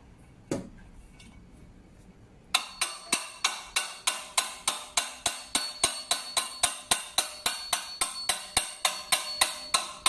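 Hammer tapping the handle of a wrench on the rotor nut of an LG washing machine's direct-drive motor, metal on metal with a light ring. Two single knocks come first, then steady rapid tapping of about four blows a second starts about two and a half seconds in, driving the thread-locked nut tight.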